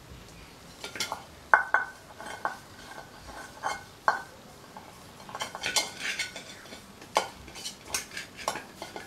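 Small stainless steel bowl clinking and scraping as it is handled and greased with oil by hand. A few sharp, ringing clinks come in the first half, then a quicker run of light taps and scrapes.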